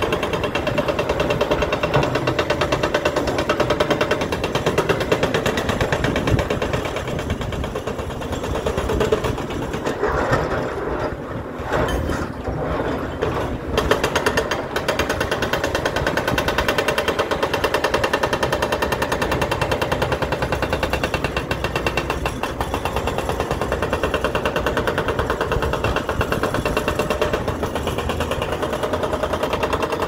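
Hydraulic breaker (hoe ram) on a Caterpillar 314 excavator hammering ledge rock: a loud, continuous stream of rapid blows over the excavator's running engine, easing briefly a little past a third of the way in.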